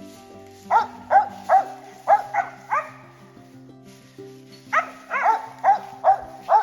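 Squirrel dog barking in two quick runs of five or six barks each, with a pause of about two seconds between them, over background music.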